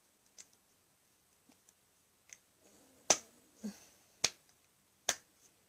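Sharp slaps of hands striking each other or the face while signing: three loud ones about a second apart in the second half, with a few fainter ticks before them.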